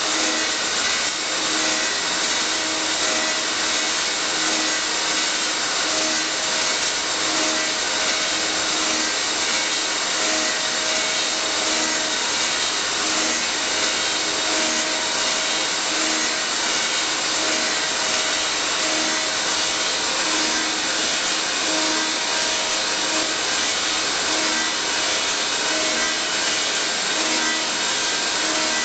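Elio Valeri 4M/65E copy lathe's sanding device working turned wooden pieces: a steady, even hiss of abrasive belts rubbing on the spinning wood, with a faint machine hum underneath.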